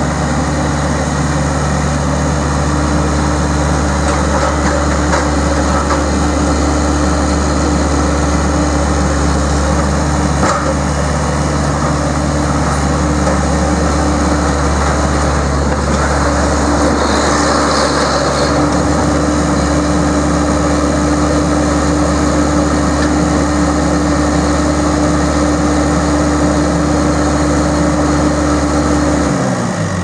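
Scat Trak 1700C skid steer's Perkins four-cylinder diesel engine running at a steady speed, then winding down as it is shut off near the end.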